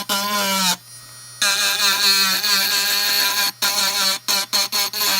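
USB-powered electric engraving pen running at top speed with its burr cutting into a workpiece, a high whine whose pitch wavers as the bit bites and drags. It drops away for about half a second a little under a second in, and breaks off briefly several times near the end.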